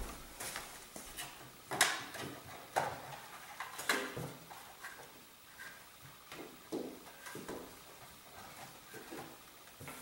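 Rustling and handling of a shielding-mesh net as it is pulled over a wireless router, with irregular sharp brushing noises. These are louder and more frequent in the first four seconds and die down to softer handling after that.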